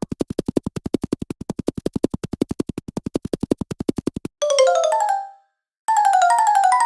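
Cartoon footstep sound effects. First comes a fast, even patter of low taps, about nine a second, for around four seconds, like a cartoon character running. Then come two short runs of pitched synth-like steps, the first climbing in pitch and the second stepping down, like cartoon steps going up and then down.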